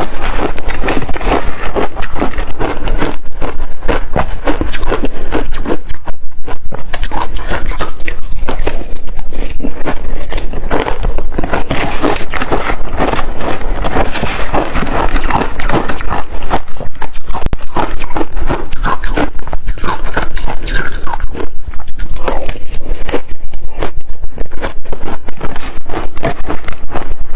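Close-miked biting and chewing of ice: a dense, continuous run of loud crunches.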